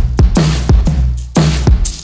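Background music with a heavy electronic beat: hard drum hits and deep bass notes that slide down in pitch.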